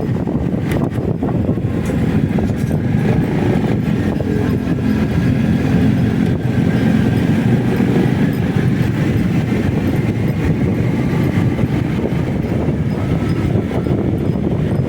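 Riding noise from a motorcycle under way: a steady rush of wind on the microphone over the engine and tyres, swelling slightly in the middle.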